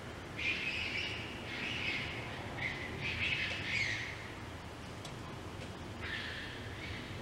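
Harsh, raspy screams of a wild animal in the dark, which the recordist takes for a fisher: three or four screams close together, a pause, then one more near the end.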